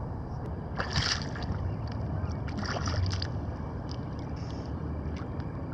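Steady wind and lapping water, broken by short splashes about a second in and again around three seconds in, as a hooked largemouth bass thrashes at the surface.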